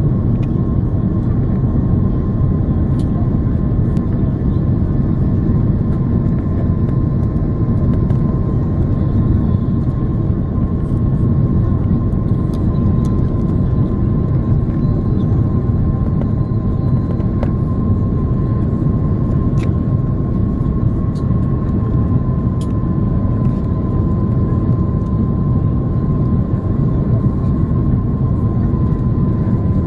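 Cabin noise of an Airbus A330-300 on approach, heard from a seat beside the wing: a loud, steady, deep rush of airflow and engine noise, with a thin steady whine from its Rolls-Royce Trent 700 engines.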